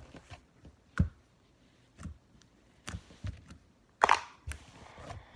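Handling noises: a series of separate sharp taps and knocks about a second apart, the loudest just after four seconds in.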